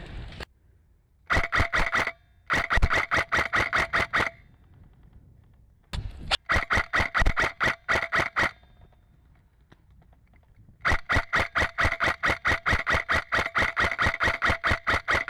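Airsoft electric gun firing in four bursts of rapid, evenly spaced shots, about six a second, with short pauses between; the last burst runs longest.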